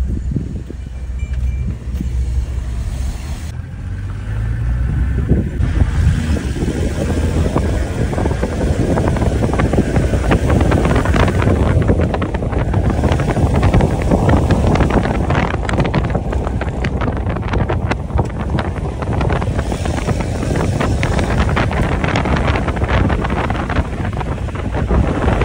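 Wind buffeting the microphone over the low rumble of a moving vehicle, growing denser and louder about six seconds in.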